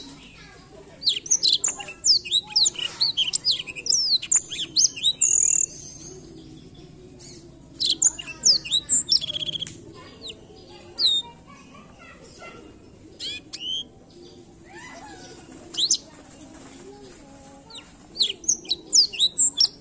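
Black-throated canary (blackthroat) singing in phrases of rapid, high chirps and trills separated by short pauses, with a long phrase near the start and another burst near the end.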